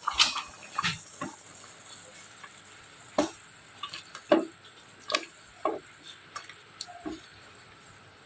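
Kitchen work: about a dozen light knocks and taps of utensils, irregularly spaced, over a faint steady hiss.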